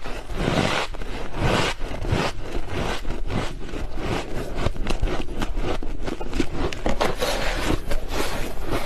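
Freezer frost being crunched close to the microphone: a rapid, uneven run of short crunches and scrapes.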